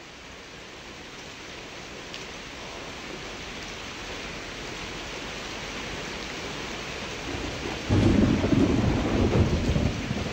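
Storm sound effect: steady rain hiss fading in and growing louder, then a deep roll of thunder breaking in about eight seconds in and rumbling on.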